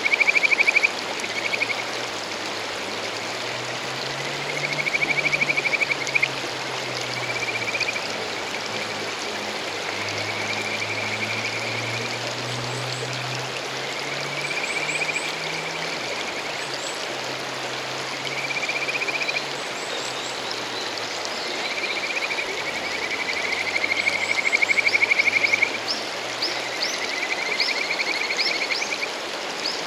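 Male kajika frogs (Buergeria buergeri) singing their courtship song over a rushing mountain stream: a run of trilled calls, each a second or two long, repeating every few seconds. Near the end come quick, higher rising notes.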